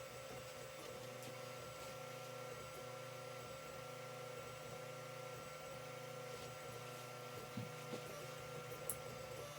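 Creality CR-10 3D printer printing: its stepper motors whine in held tones that jump to a new pitch every fraction of a second as the moves change, over a steady fan hum. A few faint clicks come near the end.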